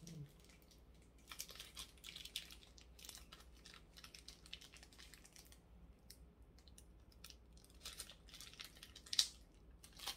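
Small clear plastic accessory bag crinkling and crackling faintly as fingers work it open, in scattered short crackles with a sharper one about nine seconds in.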